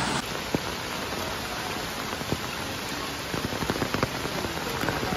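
Steady monsoon rain, an even hiss, with scattered sharp taps, most of them between about three and four and a half seconds in.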